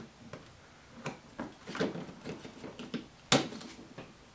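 Small plastic handling clicks at the battery compartment of a Milwaukee MA887 salinity tester, then one sharp, loud snap a little over three seconds in as the 9-volt battery is pulled off its snap connector.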